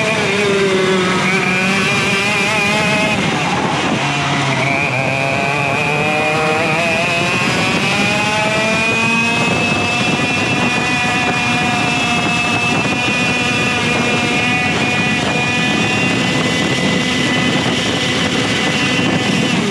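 Rok GP 125cc two-stroke kart engine at racing speed, heard from on board. The revs drop and pick up twice in the first few seconds, as for corners, then climb steadily for several seconds and hold high and steady, as on a straight.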